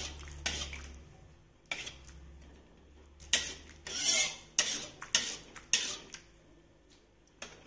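A spatula scraping and knocking against a wok while stirring a sauce just thickened with tapioca starch slurry: a string of short scrapes and clicks, with one longer scrape about four seconds in.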